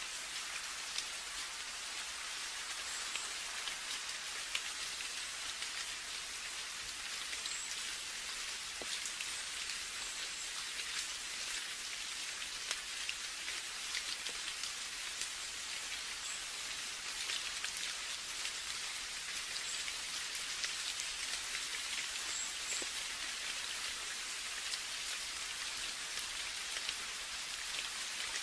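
Steady rain falling, a constant hiss made up of many small drop impacts, with occasional sharper individual drips.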